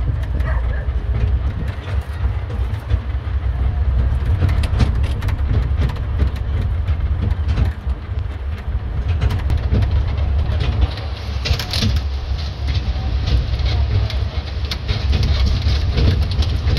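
Land train running along a paved promenade, heard from its open carriage: a steady low engine rumble with frequent rattles and clicks from the carriage as it rolls.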